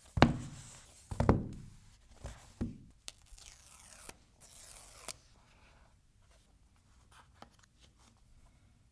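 Paper pull-tab seal strips torn off a cardboard iPhone box, after two knocks from the box being handled in the first second or so; faint rustling of packaging follows as the box is opened.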